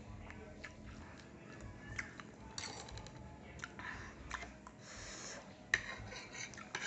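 Quiet eating sounds of spicy instant noodles: scattered light clicks of cutlery against a dish, with a few brief hissy mouth noises and a sharper click near the end.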